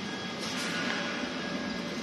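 Steady running noise of a fiber laser cutting machine setup and its air compressor: an even hiss with a faint, steady high whine.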